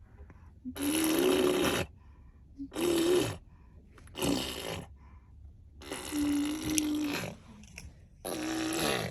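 A small child making car-engine sounds with her mouth: five buzzing 'brrr' lip-trill bursts of about a second or less each, with a steady hum under the buzz and short pauses between them.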